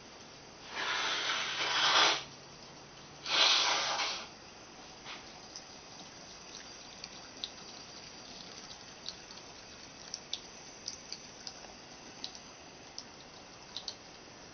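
A bathroom faucet running a thin stream of water into a sink. There are two louder splashing rushes in the first four seconds, then scattered light ticks and drips as a cat drinks from the stream.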